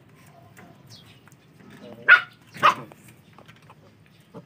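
Two short barks from a two-month-old Belgian Malinois puppy, about half a second apart, a little over two seconds in.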